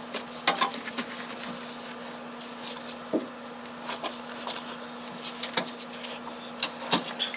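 Irregular light knocks, clicks and rustles of hands working in a car trunk, fitting insulation and trim back in place, over a steady low hum.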